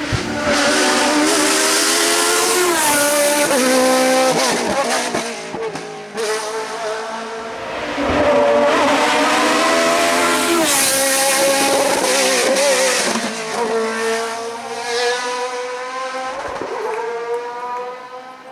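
Race car engines revving hard, their pitch climbing and dropping sharply again and again as they shift through the gears, loudest as they come close, fading near the end.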